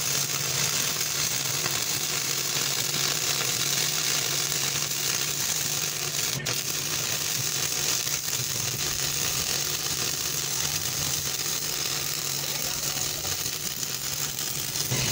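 Stick (shielded metal arc) welding: the electrode's arc crackling and hissing steadily as a bead is laid around the base of a steel pipe on a steel plate, with a low steady hum underneath. The arc is struck at the start and breaks off abruptly at the end.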